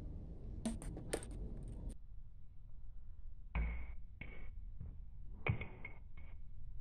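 A table tennis ball bouncing and rolling on concrete and tapping against a plastic water bottle: several sharp clicks and taps, the loudest near the middle and again later on, over a steady low rumble.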